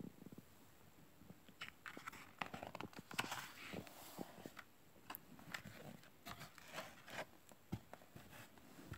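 Pages of a hardback picture book being turned and smoothed flat by hand: faint, irregular paper rustling and crinkling with small clicks and taps.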